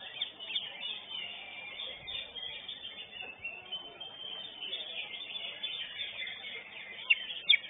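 Cucak hijau (greater green leafbird) singing a fast run of chirps and whistled notes, with two sharp, loud notes near the end.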